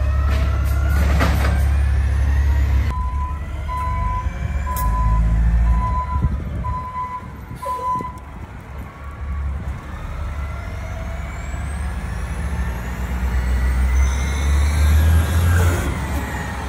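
Automated side-loader garbage truck engines running with a low, steady sound. A few seconds in, a backup alarm beeps six times, about once a second. Later the engine speeds up with a rising whine as a truck drives closer.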